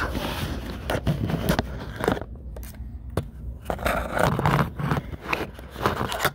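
Irregular scraping, rubbing and knocking of a phone being handled and moved about, with skin and fabric brushing close to its microphone.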